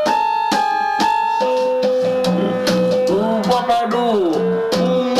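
Instrumental music: a steady beat under held keyboard notes, with a melody that swoops up and down in pitch from about two seconds in.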